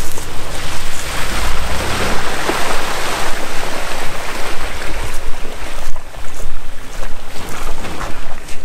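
Wind buffeting the microphone in uneven gusts, over an SUV's engine running as it crawls slowly through mud and ruts.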